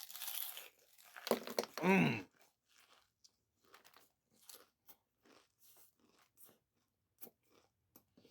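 A person biting into and chewing a wrap stuffed with kettle-cooked potato chips. There is loud crunching in the first two seconds with a short hum of the voice, then softer, irregular crunches as he chews.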